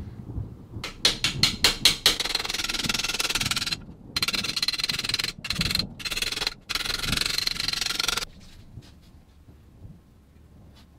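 Hammer driving a steel punch against a sheet-metal part held in a vise. A string of separate ringing blows comes first, then a fast, nearly unbroken run of metallic taps that stops suddenly about eight seconds in.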